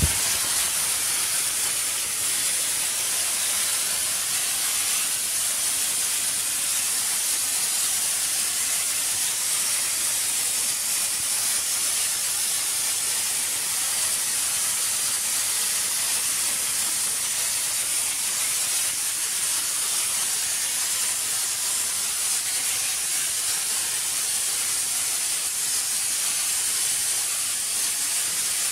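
Steady high hiss of compressed air blowing from a loose compressor hose into a mine tunnel, pushing out the gas so the miners can breathe.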